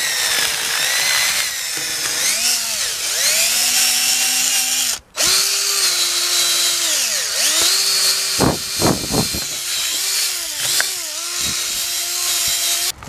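DeWalt cordless drill spinning a flat nylon drill brush that scrubs a soapy wheel: the motor whine rises and falls with the trigger over the hiss of wet bristles on the rim. The drill stops briefly about five seconds in, then spins up again.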